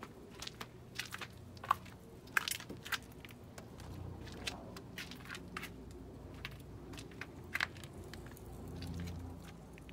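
A scatter of short, sharp clicks and knocks, loudest about two seconds in, over a faint low rumble that swells near the end.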